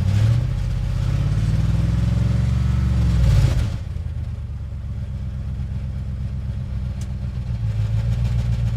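Vehicle engine and road noise while driving. The engine pitch rises for about three and a half seconds, then drops and holds steady, rising slightly again near the end.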